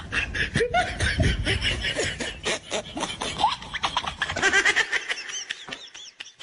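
People laughing in quick, broken bursts, dying down about five seconds in.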